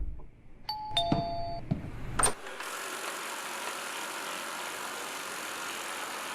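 Robot vacuum cleaner's two-note falling electronic chime with a few light clicks, then from about two and a half seconds in a steady hiss of its fan and brushes running.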